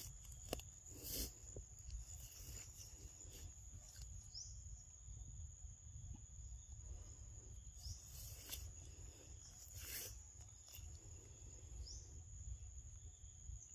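Faint outdoor ambience: a steady high-pitched insect drone, with a few short crunching rustles from a macaque foraging and chewing food among the leaves.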